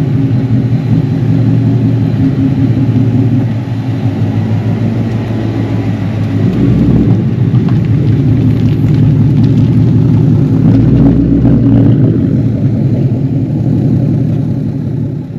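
Ford Mustang GT's 5.0-litre Coyote V8 running steadily, its active exhaust removed. The engine note eases off about three and a half seconds in and builds again around six seconds.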